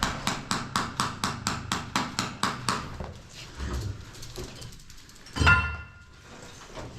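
Rapid, even hammer blows, about four a second, that stop about three seconds in, followed by a single louder metallic knock with a short ring about five and a half seconds in.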